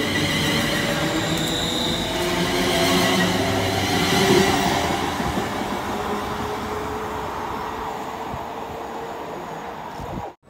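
Class 380 electric multiple unit accelerating away past the platform. Its traction motors give a whine that rises in pitch over the rumble of the wheels, and the sound fades steadily as the train draws off. It cuts off abruptly near the end.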